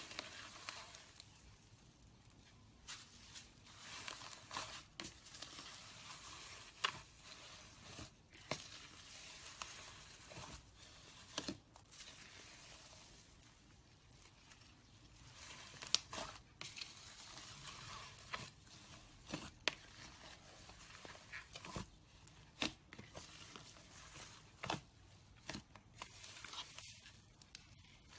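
Slime being squished and stretched by hand, giving soft sticky crackling with many sharp little pops and clicks at irregular intervals.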